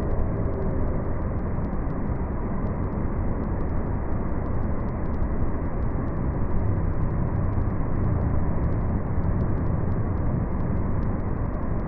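Steady rushing of a large indoor waterfall, the Rain Vortex, water falling through the dome into its pool.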